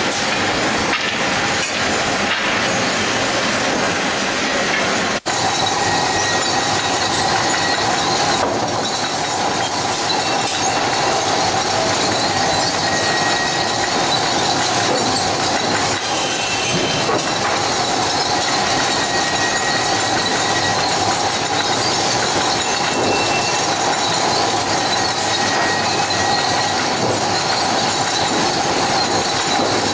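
Sawmill conveyor machinery running: a loud, steady metallic clatter and rattle of lumber chain conveyors and boards, with a steady whine underneath. The sound cuts out briefly about five seconds in.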